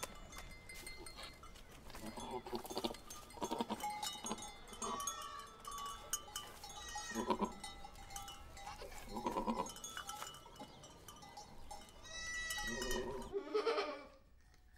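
Goats bleating several times, with the last and longest call a little before the end, over the small clinking and clicks of goat bells.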